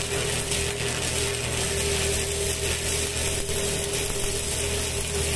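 Stick-welding arc from a Mitsushi MIT-300S inverter welder, crackling steadily, with a faint steady hum underneath.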